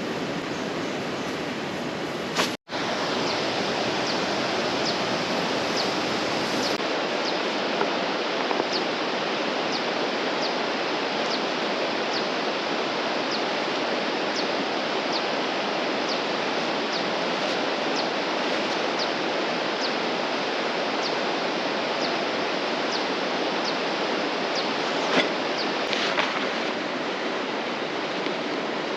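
Steady rush of a flowing river, with faint high ticks repeating about every two-thirds of a second over it.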